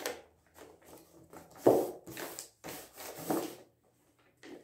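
Glue-covered sheet of A4 paper rustling and crinkling in irregular bursts as it is pressed and wrapped around a cardboard carton. The loudest burst comes about one and a half seconds in.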